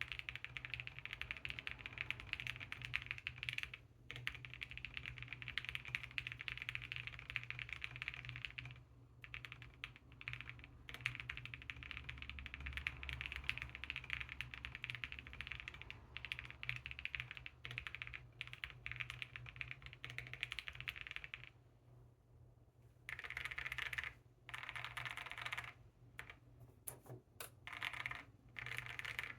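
Fast, continuous typing on a Space80 mechanical keyboard with an FR4 plate, Gazzew Boba LT linear switches and full foam, heard through a phone mic, with a steady low road-noise hum underneath. The typing stops briefly about three-quarters of the way through, then comes back in short bursts.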